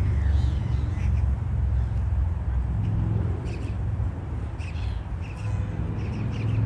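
A flock of gulls calling, many short harsh calls scattered throughout, over a steady low rumble.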